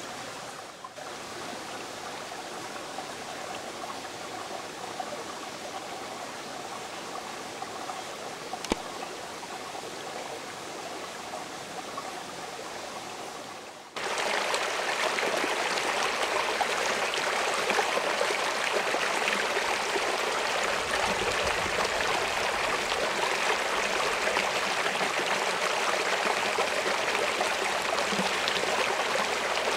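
Steady rush of a creek flowing over rocks, with no voices. It turns louder and brighter at a cut about halfway through.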